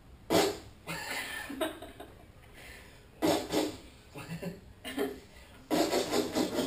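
Three short bursts of muffled laughter, about three seconds apart, the last one longer with several quick pulses.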